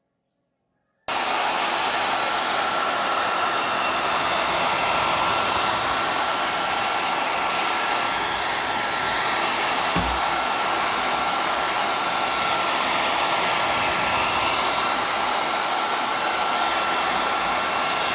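Hair dryer blowing steadily, starting abruptly about a second in, with a thin steady whine over the rush of air and one short low thump about ten seconds in.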